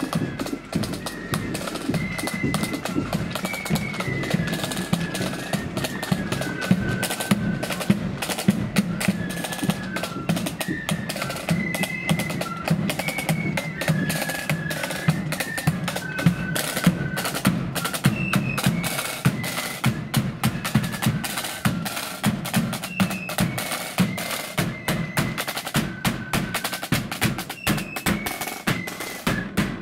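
Marching flute band playing a tune: flutes carry a single high melody over rapid snare-drum rolls and a bass drum beat.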